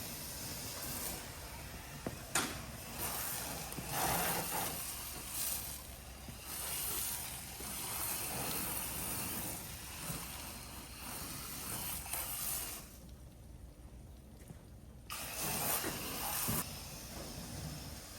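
Liquid spraying hard onto a car's wheels during washing: a long steady hiss that breaks off for about two seconds near the two-thirds mark and then starts again.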